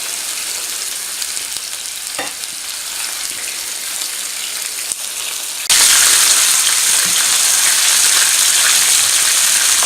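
Whole masala-coated fish shallow-frying in olive oil in a pan, a steady sizzle. About six seconds in, the sizzle suddenly gets louder and brighter.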